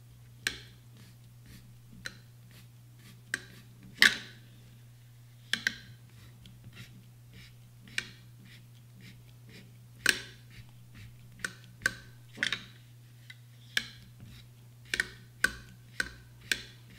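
Cleaning rod with a chamber mop being worked in and out of an AR-15's chamber, making scattered light clicks and knocks against the receiver at irregular intervals, over a steady low hum. The mop is wiping loosened fouling and solvent residue from the locking lugs.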